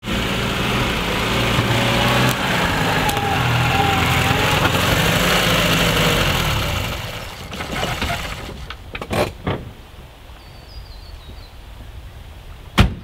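A 1991 Lada Niva's 1.6-litre four-cylinder engine running as the car drives up and stops, then switched off about seven seconds in. A few clunks follow, and a car door shuts with a sharp bang near the end.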